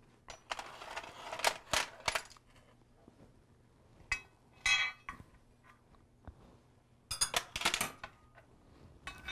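Scattered light clinks and clacks of small stones and scallop shells being set down on a serving plate, with metal tongs clinking against a baking tray; a quicker run of clinks near the end.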